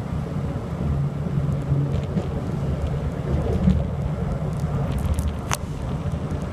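Passenger train running along the track, heard from inside the carriage as a steady low rumble of wheels on rails. A brief sharp click or squeak stands out about five and a half seconds in.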